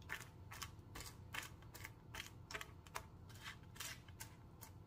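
Metal spoon patting and scraping a sticky cornflake mixture flat on a metal sheet pan: faint, short repeated strokes, about two to three a second.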